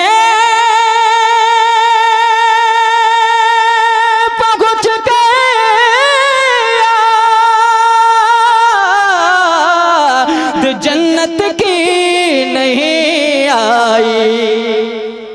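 A young male voice singing a naat unaccompanied through a microphone, without words: one long high note held for about the first half, then wavering vocal runs that drop in pitch and die away near the end.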